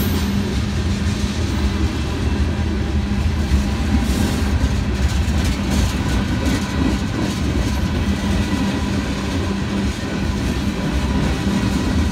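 Freight cars, tank cars and covered hoppers, rolling past steadily: a continuous rumble of steel wheels on the rails, with scattered clicks of the wheels over the rail joints.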